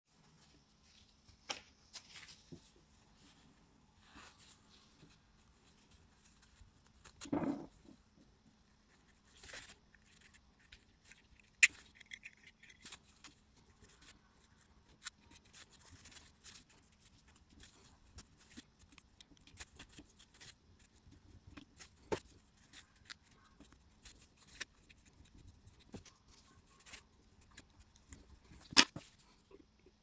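Gloved hands handling a Zippo lighter's insert and its cotton packing: scattered small clicks, taps and rustles, with a soft thump about seven seconds in and sharper clicks about twelve seconds in and near the end. A faint steady low hum lies underneath.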